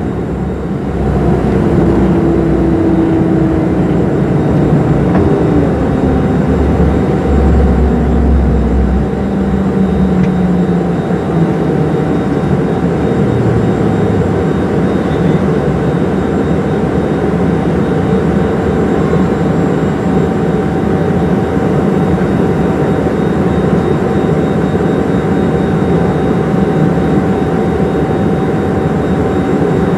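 Jet airliner's turbofan engines at takeoff power heard inside the cabin, a loud steady noise. A low rumble from the wheels on the runway stops about nine seconds in as the plane lifts off, and a tone falls in pitch over the first ten seconds.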